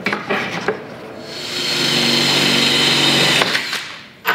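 Cordless drill drilling a rivet hole through the solar panel's metal frame to fix a hinge. It swells up about a second in, runs steadily, and stops about three and a half seconds in, after a few light knocks from handling.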